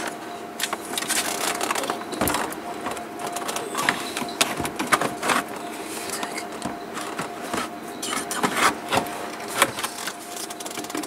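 Irregular knocks, clicks and rattles of a car heater box and its fittings being handled and worked into place under the dashboard of a Mercedes W123.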